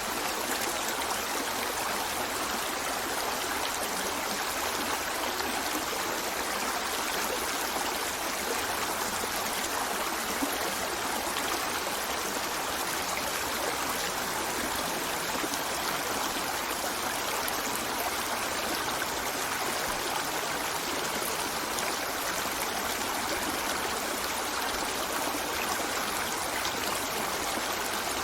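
A river flowing steadily over rocks, a continuous rushing and babbling of water with no change in level.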